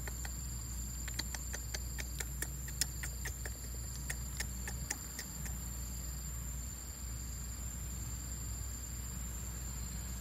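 Steady high-pitched insect buzz. Over it, a run of light, irregular clicks in the first half, with the sharpest near three seconds in.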